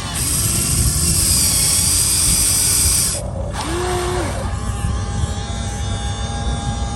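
Remote-control model excavator's electric motors and gearboxes whirring as it works, with a bright high-pitched whine for about the first three seconds that cuts off suddenly, then a steadier, lower whir.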